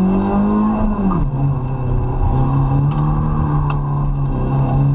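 Rally car's engine heard from inside the cabin under power: revs climb, fall sharply about a second in, then hold steady. Scattered sharp ticks sound over it.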